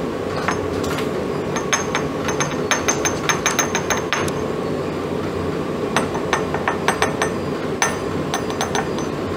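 Quick light taps and clinks on glass BOD bottles while nitrification inhibitor is dispensed into them, in three runs of about four or five strokes a second, each with a short glassy ring. A steady hum runs underneath.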